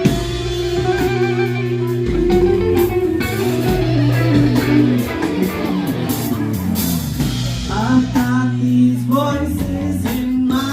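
Song intro with guitar over a steady bass line, a voice coming in briefly near the end.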